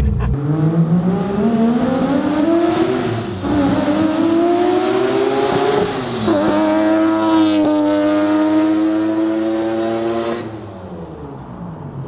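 Turbocharged three-rotor rotary engine of a Mazda RX-7 at full throttle, its pitch climbing through the gears with upshifts about three and six seconds in, then holding before fading away near the end as the car goes past. The driver believes the intake pipe blew off on the shift into third, which left the pull at zero boost.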